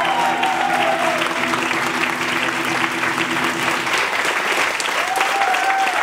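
Audience applauding steadily as the live music ends. The last held notes fade out about a second in, a low sustained tone stops about four seconds in, and a voice calls out near the end.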